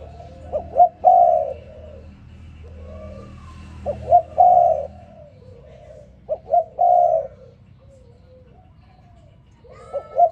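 Spotted dove cooing: repeated phrases of two short notes and then a longer coo, about every three seconds, with softer coos between the phrases.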